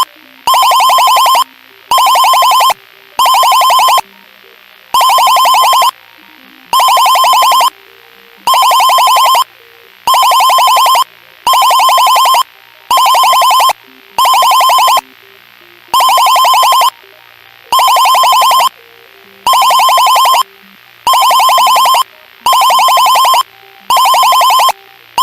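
Electronic emergency-alert alarm tone sounding in loud bursts of about a second, each a fast trill, repeating roughly every second and a half with slightly uneven gaps.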